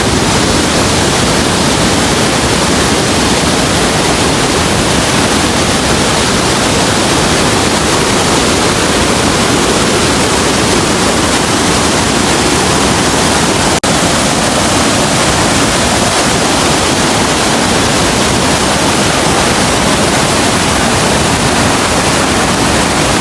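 Rhine Falls, a large waterfall, giving a loud, steady rush of falling water. A single brief click comes about two-thirds of the way through.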